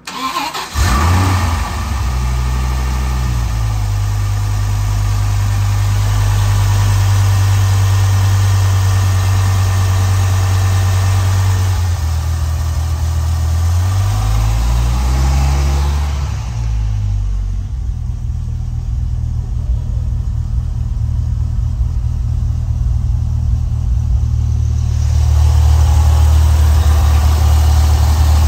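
Dodge Viper V10 engine cold-starting: it cranks briefly and catches within a second with a short flare, then idles steadily. Partway through, the engine note dips and wavers, then settles again, louder near the end.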